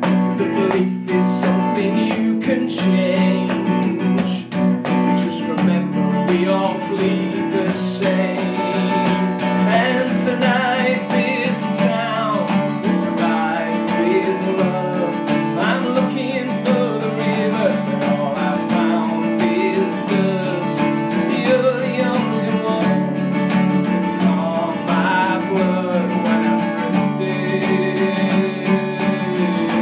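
Solo guitar strummed and picked through an instrumental passage of a song, steady chords under moving melodic lines.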